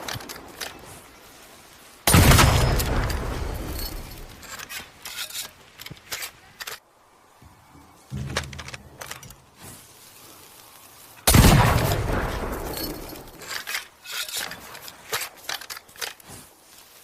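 Two shots from a Tanegashima matchlock gun, about two seconds in and again about eleven seconds in, each dying away slowly with a long echoing tail. Scattered sharp clicks and crackles fill the gaps between the shots.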